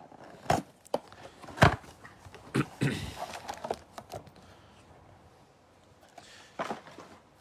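Hands opening a cardboard trading-card box and handling its packs: a scatter of short taps and knocks on a wooden table with a brief cardboard rustle, the loudest knock about one and a half seconds in.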